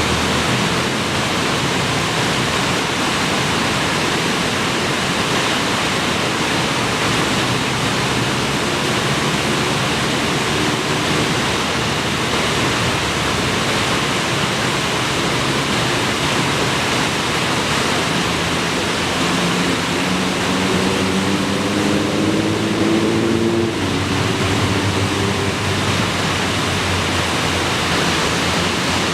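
Waterfall with a heavy flow of clear water roaring steadily as it drops over several tiers of artificial stone revetment.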